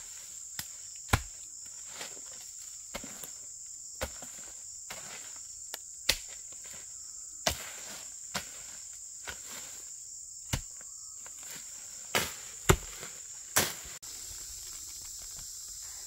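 Irregular strikes of a digging tool biting into soil and roots while digging out wild yam tubers, about ten blows. A steady high insect drone sits beneath them.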